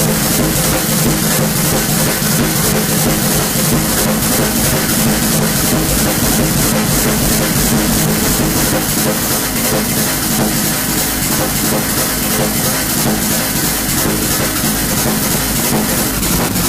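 Loud, continuous electronic noise music: a dense wall of hiss and rumble with a few steady low drones and a fast flickering pulse, unchanging throughout.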